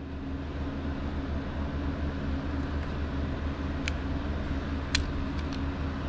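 Steady low mechanical hum, with a few light, sharp clicks in the second half as the outboard carburetor's mounting screws are started by hand.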